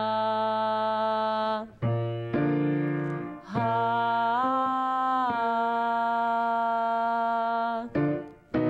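A woman sings long held 'ah' notes as a vocal warm-up exercise over sustained keyboard chords, the sung pitch stepping up briefly about four and a half seconds in and dropping back. The notes break off briefly about two, three and a half and eight seconds in.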